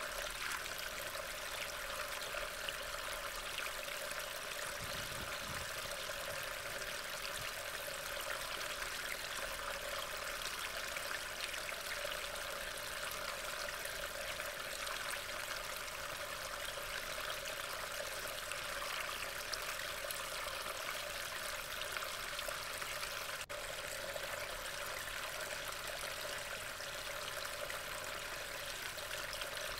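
Rain falling steadily.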